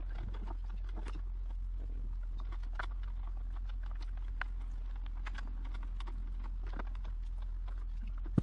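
Sticky electrical tape being cut and unwound from a car's wiring harness and washer hose, making irregular small crackles and clicks over a steady low hum.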